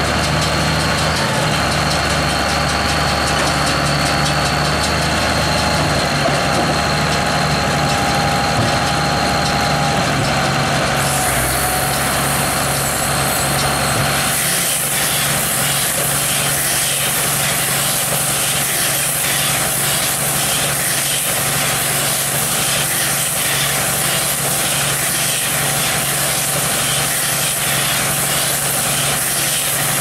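A Case IH 956XL tractor's diesel engine running steadily while it drives a Criap Midi-Baler 85 baler-wrapper combination through a bale wrapping cycle. About halfway through, the sound shifts: the steady engine hum drops back and a loud hiss with regular machinery clatter comes in.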